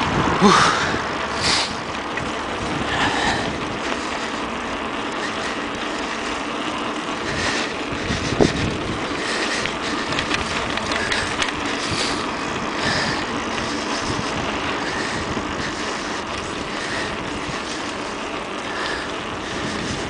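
Steady noise of a bicycle ride: the tyres rolling over paving stones, with wind on the microphone.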